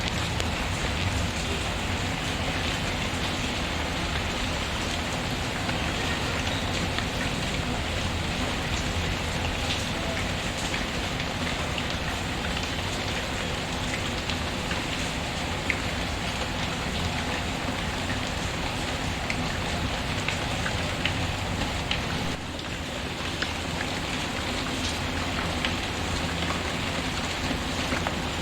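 Steady rain falling, with occasional small crackles and pops of a wood fire.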